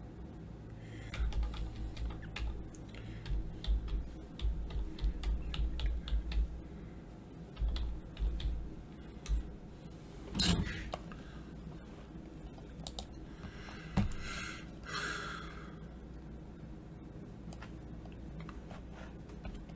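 Typing on a computer keyboard: a run of quick key taps, then a louder single click about halfway through and a sharp knock a few seconds later.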